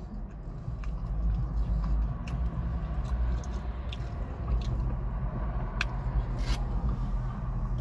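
Mouth sounds of someone chewing food close to the microphone, with scattered short wet clicks and smacks, over a steady low rumble.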